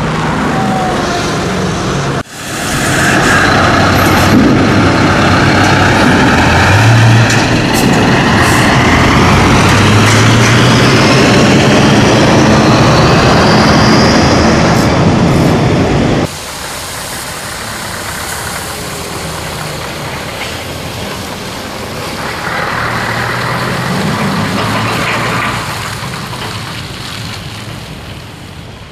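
Scania V8 truck engine running loud under load, its note stepping up and shifting. About 16 seconds in the sound drops suddenly to a quieter engine note, which swells and fades again near the end.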